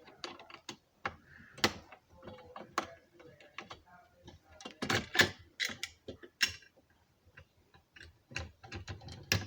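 Irregular plastic and metal clicks, taps and small rattles from a fire alarm pull station and its mounting hardware being handled, with a few louder knocks about halfway through.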